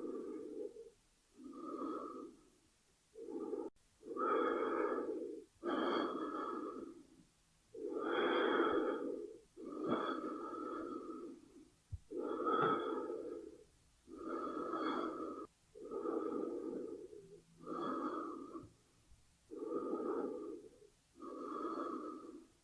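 A person breathing slowly and steadily, in and out, with a breath sound every second or two and short pauses between.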